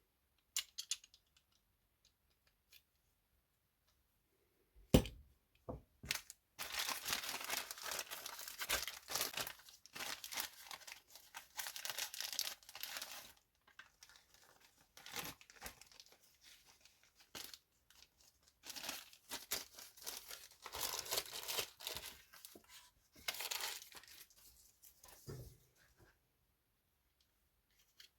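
Packaging of a carburettor rebuild kit being torn open and crinkled: a sharp click about five seconds in, then two long stretches of tearing and crinkling with small rustles between.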